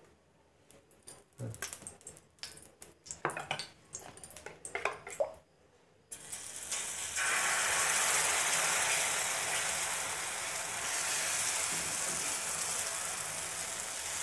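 A few light clinks and knocks of a steel bowl and spoon, then about six seconds in a loud sizzle starts suddenly as egg-and-gram-flour batter is poured onto a hot oiled pan. The sizzle holds steady as the batter is spread out with a spoon.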